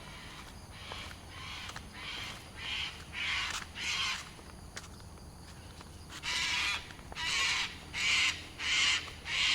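A bird calling in two runs of repeated calls, five or six calls in each, the second run louder.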